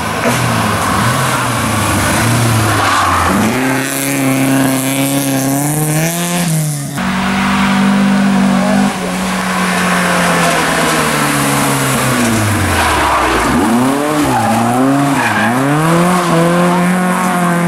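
Historic rally cars driven hard past the spot, engines revving up and dropping back through gear changes, again and again.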